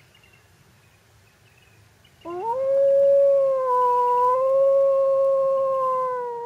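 A single long canine howl that starts about two seconds in, swoops up at the start, then holds an even pitch for several seconds before sliding down and fading. Faint chirping, like crickets, is heard before it.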